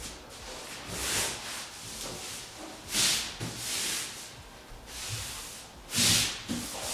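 Thin foam flooring underlayment rustling and swishing as hands smooth and press it flat against the floor. It comes in several swells, the loudest about three and six seconds in.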